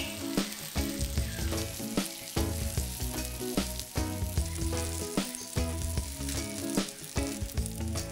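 Cheese-filled dough parcels frying in shallow oil in a pan, sizzling and crackling steadily, over background music.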